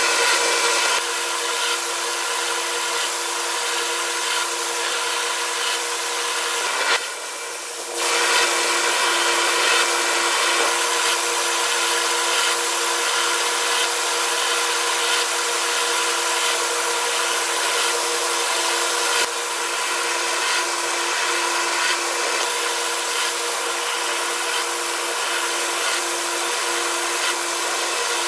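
ANCA FX7 CNC tool grinder grinding a brad-point drill tip with an outside radius under a coolant spray: a steady hiss over a steady machine hum, which drops away briefly about seven seconds in.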